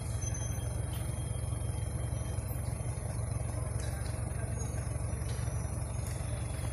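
Toyota Hilux pickup's engine running steadily with a low rumble as the truck crawls slowly down a steep mud track, with no revving.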